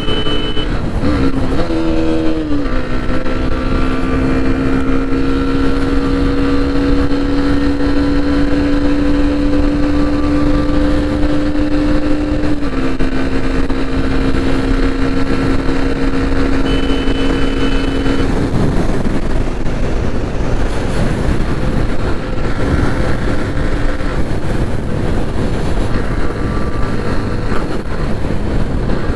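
Hero Xtreme 125R motorcycle's 125 cc single-cylinder engine running steadily over a constant rushing noise, with a steady droning tone on top. The tone drops slightly in pitch about halfway through and fades out about two-thirds of the way in, leaving only the rush.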